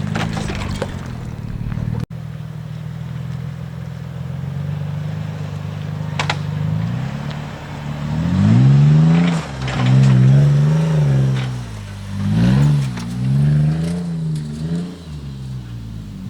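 Toyota 4Runner 4.0 V6 through a Carven high-clearance dump-exit exhaust, running with a low steady drone at first, then revving up and easing off four or five times from about eight seconds in.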